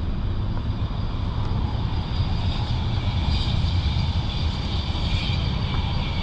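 Distant engine noise: a steady low rumble with a high whine that swells about halfway through and then eases off.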